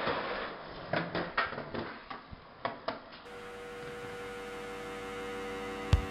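Skateboard rolling on a concrete garage floor and driveway, with a string of sharp knocks and clacks from the wheels and board over the first three seconds. Then a steady hum with a held tone, ended by a single sharp click.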